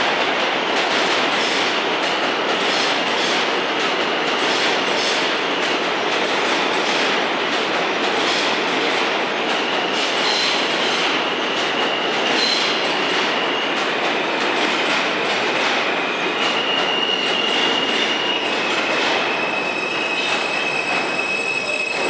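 New York City subway R160 train running past on the near track and slowing into the station: wheels clicking over rail joints at first, then high, steady squealing from about halfway through as it brakes toward a stop.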